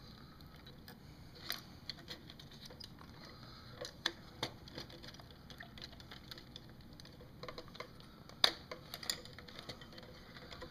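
Scattered small clicks and taps of a screwdriver and small screws as a docking connector is unscrewed and freed from a plastic radio housing, the sharpest click about eight and a half seconds in.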